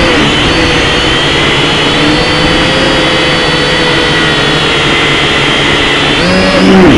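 Jet aircraft engines running loud and steady, a broad roar with high whining tones held over it, growing a little louder near the end.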